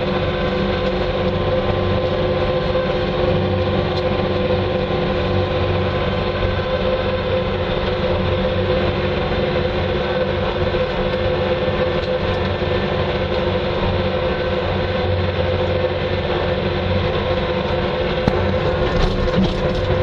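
Bobcat 2410 loader's engine running steadily as it drives along at about 20 mph, heard from the operator's seat, a constant drone with a steady hum over it. A few faint ticks come near the end.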